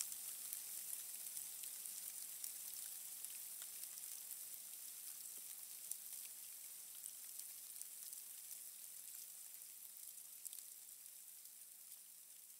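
A steady, crackling hiss of water, slowly fading out.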